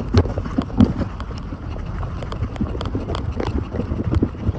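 Strong wind buffeting the microphone as a low rumble, with many irregular light clicks and knocks throughout.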